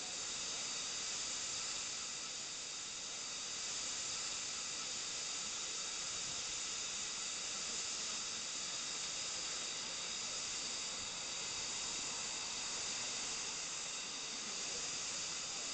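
Steam hissing steadily from around the cylinders of LMS Fowler 4F 0-6-0 steam locomotive 44422 as it stands at the platform, an even hiss with no exhaust beats.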